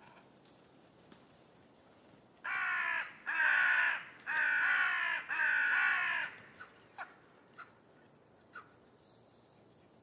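Carrion crow calling: four caws in quick succession, each under a second long, starting about two and a half seconds in. A few faint short clicks follow.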